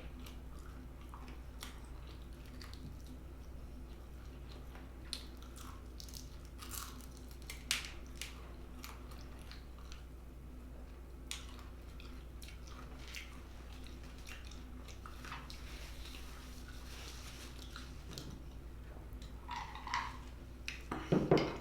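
Chewing and crunching of crispy fried chicken: scattered soft bites and crackles over a steady low hum, with a louder knock near the end.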